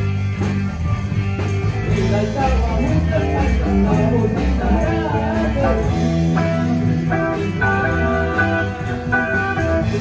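Rock band playing live in a rehearsal room: electric guitars over a steady drum beat.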